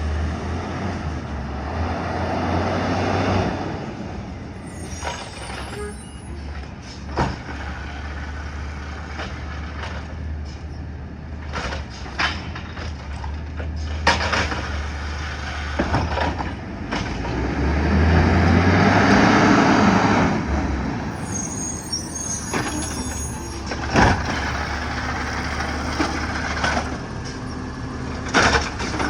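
Heavy truck's diesel engine running, swelling louder twice, with a few air-brake hisses and scattered sharp knocks and bangs.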